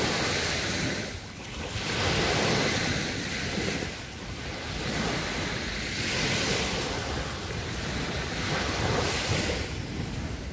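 Small waves breaking and washing up a sandy beach, swelling and falling back every couple of seconds, with wind rumbling on the microphone.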